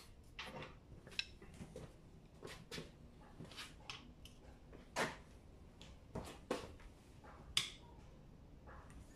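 A socket and bar being fitted to and worked on the steel bearing-cap bolts of a differential carrier: scattered metal clicks and clinks, with two sharper knocks, one about five seconds in and one near the end.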